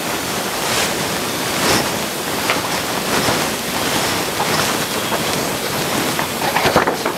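Steady hiss of recording noise, with faint footsteps and rustles over it; a cluster of paper rustling and light knocks near the end as sheets of paper are put down on a small table.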